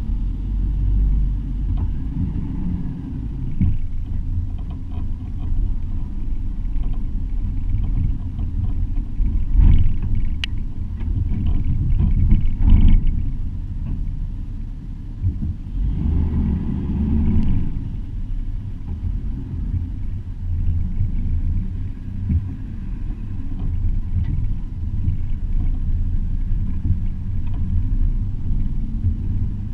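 Truck driving over sand dunes, heard as a low engine rumble through a hood-mounted action camera, with a couple of louder surges partway through.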